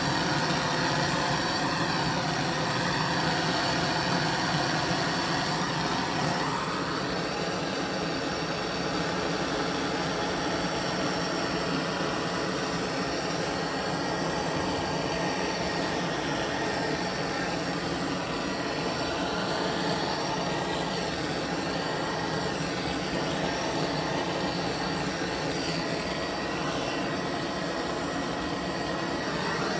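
Hand-held gas torch burning steadily with a blue flame: a continuous rushing hiss with a faint hum in it, its tone shifting a little about six seconds in.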